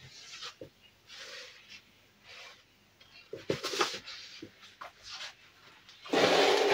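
Hands working on computer parts: scattered rubbing and scraping with small clicks, and a louder half-second noisy rush near the end.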